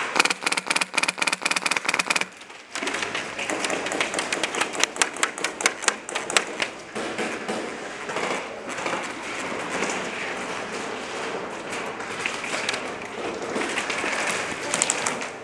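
Airsoft gun firing on full auto: a burst of rapid, sharp clicking shots lasting about two seconds, a brief pause, then a longer burst of a few seconds, followed by scattered single shots.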